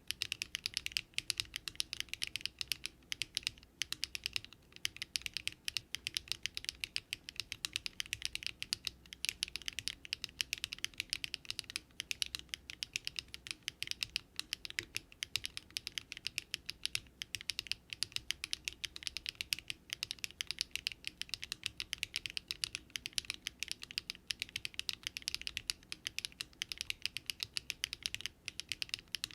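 Continuous typing on a Daring Run Polygon-7 custom mechanical keyboard built with Luminkey Astral switches, an FR4 plate and no foam: a steady stream of rapid keystrokes with a few brief pauses.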